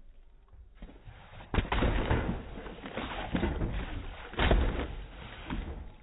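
Water gushing and splashing out of a hole in the cracked, water-filled plastic base of a portable basketball hoop, with two loud thumps on the hollow base, about one and a half seconds in and about four and a half seconds in.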